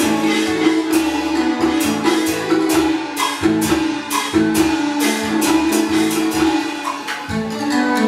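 Taiwanese opera (gezaixi) accompaniment band playing: sharp percussion strokes keep a steady beat under a melody on string and wind instruments.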